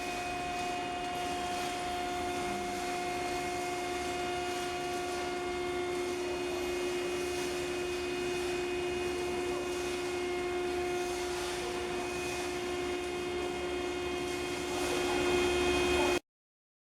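BTA deep hole drilling machine running: a steady mechanical hum with a held pitch, growing a little louder near the end before cutting off abruptly.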